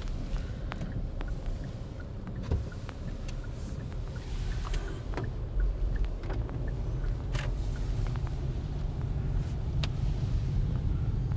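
Car driving slowly, heard from inside the cabin: a steady low rumble of road and engine noise, with scattered small clicks and taps.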